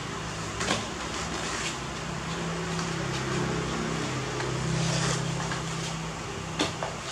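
Steady background hiss and low hum, like a running fan or distant traffic, with two sharp knocks, one about a second in and one near the end.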